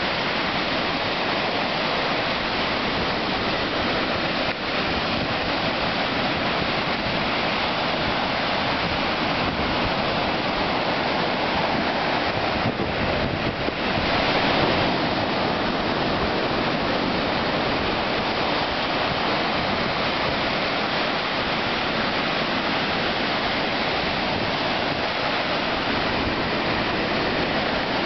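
Ocean surf breaking and washing up a sandy beach: a steady rushing of water that swells a little about halfway through.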